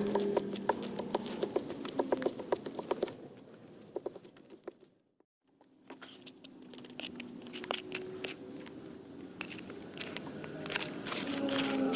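Irregular scraping, clicking and crinkling from hand work mixing a small batch of high-temperature cement. The sound cuts out abruptly for about half a second near the middle.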